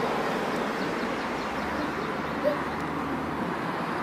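Steady outdoor street noise from distant road traffic, with a short bird call about two and a half seconds in.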